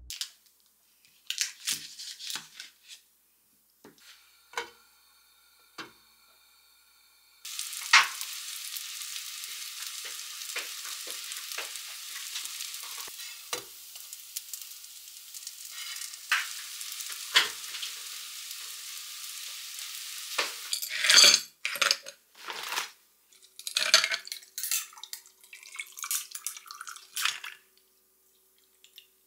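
Bread toasting in a frying pan, sizzling steadily for about thirteen seconds while metal tongs tap and scrape the pan. Near the end comes a run of loud, sharp clinks, like ice cubes going into a glass.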